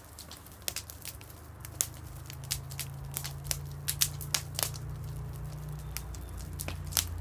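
Bonfire of broken timber crackling, with sharp irregular pops several times a second. A low steady rumble builds underneath from about two seconds in.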